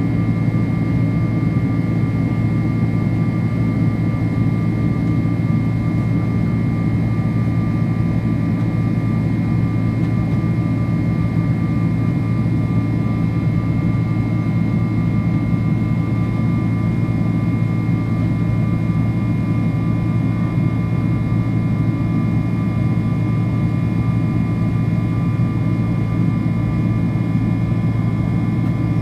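Steady drone of a Boeing 767-300ER's GE CF6 turbofan engines, heard inside the cabin near the wing while the airliner climbs out after takeoff. A constant low rumble carries a couple of thin, steady whining tones above it.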